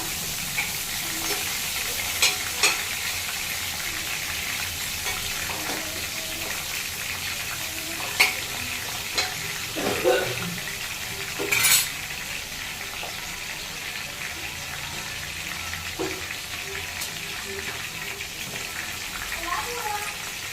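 Chicken burger patties frying in a pan of oil: a steady sizzle, with a few sharp clinks of a utensil against the pan.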